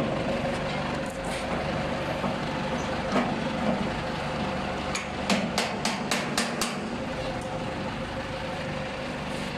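A forklift engine idling steadily. Over it come a few sharp metallic clicks, then a quick run of about seven clinks at about five to seven seconds in, as a steel hook and shackle are handled against the hopper's bracket.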